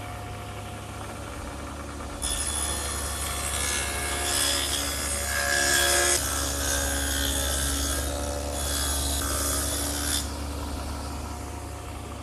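Table saw with an adjustable dado head cutter running, then cutting a groove about a quarter inch wide and half an inch deep along the edge of a pine 1x3 board. The cut starts about two seconds in and lasts about eight seconds, after which the cutter spins free again.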